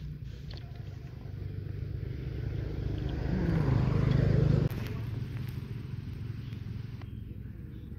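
A small motor vehicle engine runs throughout. It swells louder over a few seconds with a falling pitch, as if passing close by, then drops off abruptly a little past halfway, leaving a lower steady engine hum.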